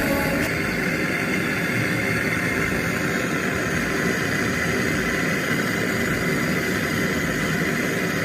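A machine running steadily: an even hum and hiss with a constant high whine.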